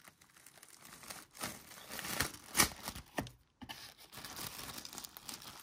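Paper tape and packaging being peeled and torn off a mailing box, a slow irregular run of rustling and tearing, with the loudest tear about two and a half seconds in.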